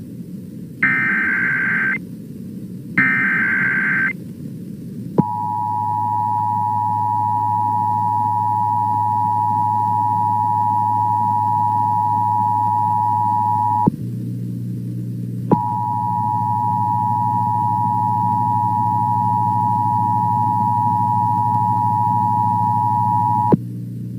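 Emergency Alert System tones for a tornado warning: two short, high, screeching header data bursts about a second each, then the steady two-tone attention signal held for about eight seconds, breaking off briefly and resuming for about eight more seconds, over a low steady hum.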